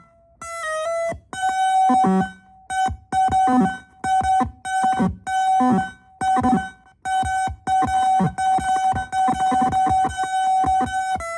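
Electric guitar through a Fuzzhugger Effects Phantom Octave fuzz pedal making glitchy sounds: a held high note with stacked overtones that cuts in and out abruptly over and over, with short lower notes sliding downward beneath it.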